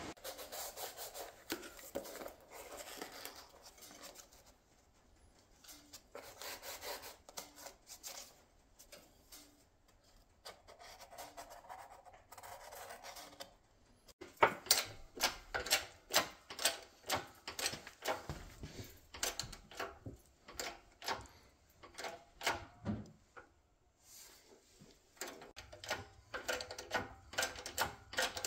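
Irregular rubbing and scraping on metal, then, from about halfway through, rhythmic clicking at about two a second from a hand-pumped hydraulic shop press driving a shop-made bending die into eighth-inch steel plate, with a brief pause before it resumes.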